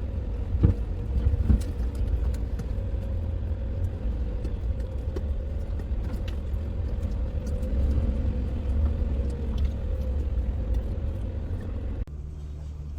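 Steady low rumble of a vehicle driving, heard from inside it, with a couple of knocks about a second in. Near the end the sound cuts abruptly to a quieter steady hum.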